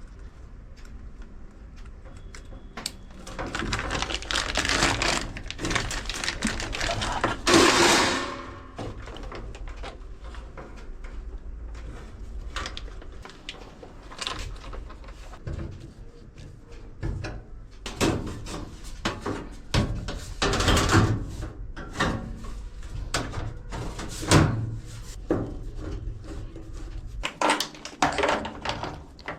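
Clicks, knocks and rustling of hands working inside a top-load washing machine's cabinet while fitting a replacement wiring harness, with a louder stretch of rustling about four to eight seconds in.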